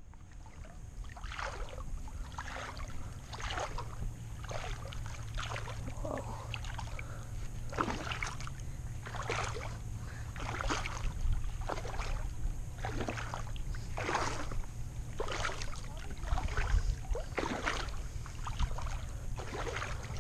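Water slapping and splashing against a boat hull, a short splash about every second, over a low steady hum.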